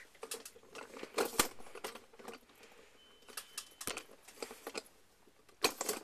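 Handling noise: scattered light clicks, taps and rustles, with a louder cluster of clicks near the end.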